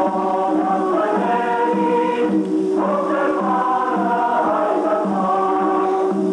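A choir singing slow, held chords, with a short break about two and a half seconds in.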